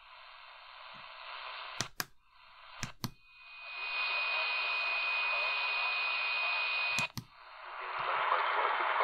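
AM radio hiss and static on the medium-wave band as the tuning is stepped from frequency to frequency, with a sharp click at each step. For about four seconds in the middle, a steady high whistle sits over the static, a "birdie" tone of the kind this radio's MW band is plagued with. It cuts off at the next tuning click.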